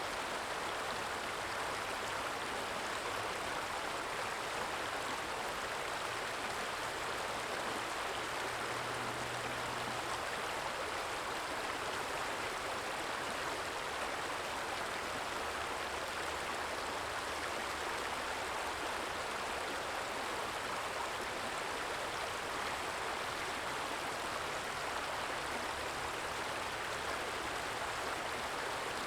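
Small stream with water flowing and trickling in a steady, even rush.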